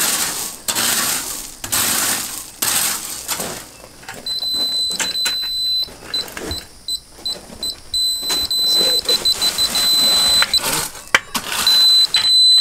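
A rake scraping through gravel in strokes about once a second. Then, from about four seconds in, a DeWalt laser level receiver on a grade rod gives a high electronic tone that breaks into rapid beeps and then holds steady. The tone is its signal that the laser line is crossing the receiver.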